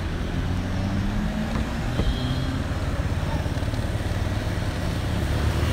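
Engine of a motor vehicle running as it drives slowly along a street, a steady low hum over road rumble, its pitch drifting up slightly now and then.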